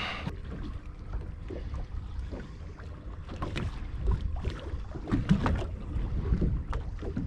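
Wind buffeting the microphone aboard a fishing boat at sea, a steady low rumble, with scattered light knocks and taps.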